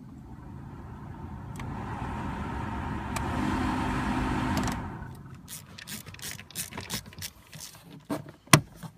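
Ford Focus heater blower fan rushing air and getting louder in steps as the fan speed knob is turned up, working on each speed with the new fan speed resistor fitted. It is switched off about five seconds in, and a string of sharp clicks and knocks follows.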